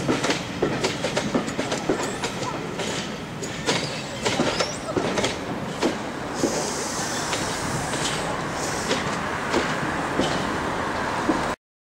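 Passenger coaches rolling away over station pointwork, wheels clicking and clacking over the rail joints and crossings in an irregular run. A high hissing wheel squeal joins about six seconds in, and the sound cuts off suddenly near the end.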